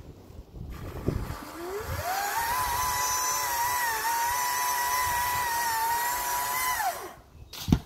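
Chainsaw revving up about a second and a half in, running at a steady high pitch for about five seconds, then winding down and stopping. A sharp thump comes just before the end.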